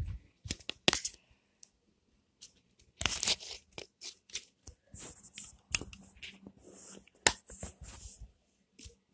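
Handling noise from fingers rubbing and knocking on the recording phone: irregular scratchy rustles broken by sharp clicks, in uneven bursts.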